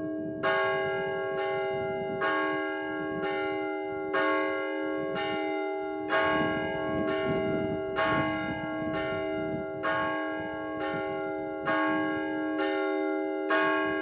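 Orthodox church bells rung by a bell ringer, struck about once a second, each stroke ringing on under the next in a steady peal. It is a call to the evening service.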